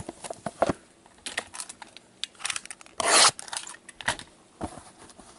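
Wrapping and cardboard of a sealed trading-card box being torn open and handled: scattered scrapes and clicks, with one loud rip about three seconds in.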